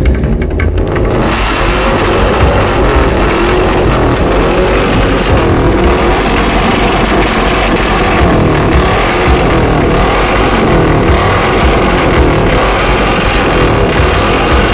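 Car engine revving hard through a loud exhaust, held at high revs with the pitch rising and dipping, fuller and louder from about a second in.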